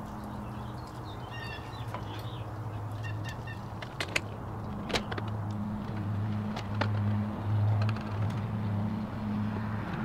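Sharp clicks and taps of hand work on an RV door latch's metal hardware, over a low, steady engine-like hum that grows louder in the middle. A bird chirps briefly twice near the start.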